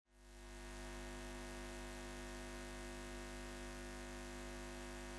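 A steady electronic drone of several held tones over a low hum, fading in over about the first second.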